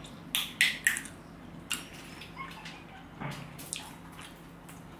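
Short wet mouth clicks and smacks while eating something small taken from the fingers: three close together in the first second, then a few more, sparser, around two and three seconds in. A faint steady hum lies underneath.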